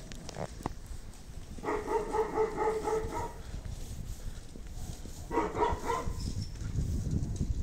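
An animal's high-pitched calls, twice: a longer pulsing one and a shorter one a couple of seconds later.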